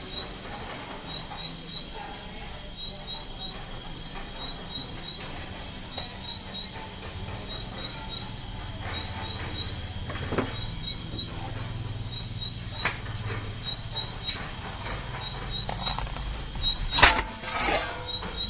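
A metal pizza peel carrying a topped pizza into a wood-fired oven: quiet handling, then a short loud scrape and clatter near the end as the pizza goes onto the oven floor. Under it runs a faint steady high tone with short high chirps repeating two or three times a second, and a low hum comes up about halfway.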